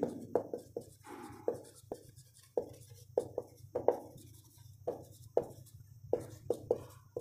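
Marker pen writing on a whiteboard: a run of short, irregular squeaks and taps as the tip forms each letter.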